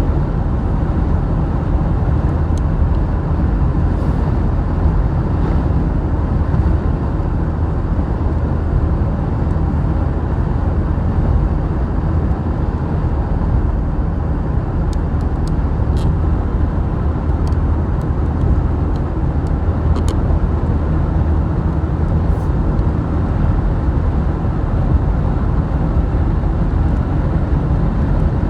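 Steady road noise of a vehicle driving: an even low rumble, with a few faint clicks past the middle.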